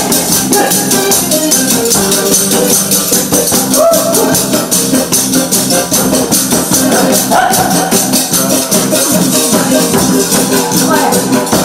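Yeot scissors, the Korean taffy seller's iron shears, clacked in a fast, steady rhythm over loud backing music.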